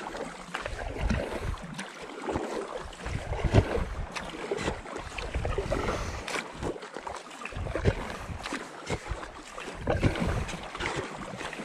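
Double-bladed kayak paddle strokes on calm lake water, the blades dipping and pulling on alternate sides with splashing and dripping water.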